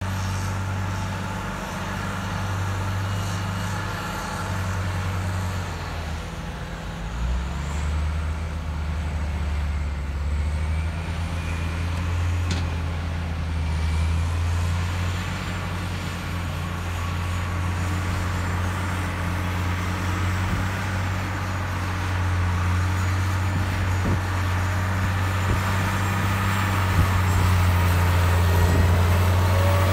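Heavy diesel earthmoving machinery running: a steady low engine drone that shifts in pitch now and then. It grows louder near the end as the Cat 627G scraper comes close.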